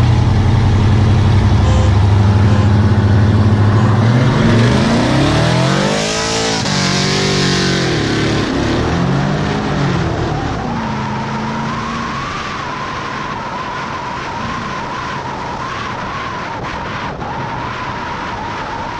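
Pickup V8 engines launching at full throttle in a street race. A low steady engine note gives way about four seconds in to revs sweeping up and dropping back through several gear changes. After that comes a steady rush of wind and road noise at speed, with a constant whine.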